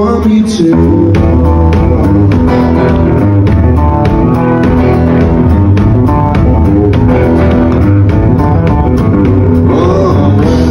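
Live rockabilly band playing an instrumental stretch: strummed acoustic guitar over bass and a drum kit keeping a steady beat, kicking in about half a second in.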